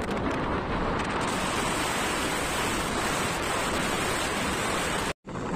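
Steady rushing wind on the microphone of a moving motorbike, drowning out the engine. It cuts out completely for an instant near the end.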